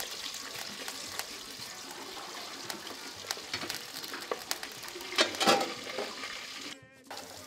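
Sliced onions frying in palm oil in an aluminium pot: a steady sizzle with small crackles as a wooden spatula stirs them. A brief louder noise comes a little past five seconds in, and the sound drops out briefly just before the end.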